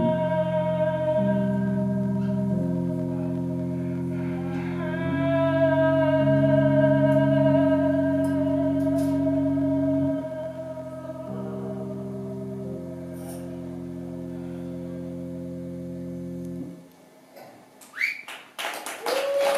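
A live rock band's closing sustained chords, changing every second or two, with a long wavering high note held above them. It all cuts off about 17 seconds in, and the audience starts cheering and clapping near the end.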